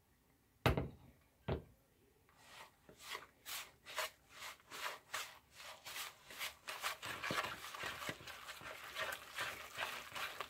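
Two sharp knocks, then a wire whisk stirring thick zucchini bread batter in a mixing bowl: rhythmic scraping, swishing strokes at about three a second as the wet ingredients are worked into the dry.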